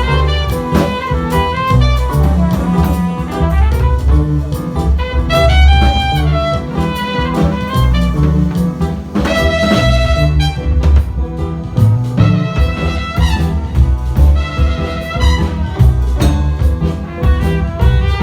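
A band playing instrumental music: a melody line over a steady bass and drum beat.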